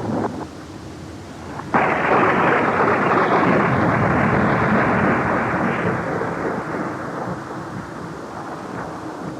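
Thunder sound effect played from a cassette tape: a sudden thunderclap about two seconds in, then rumbling that slowly fades over several seconds.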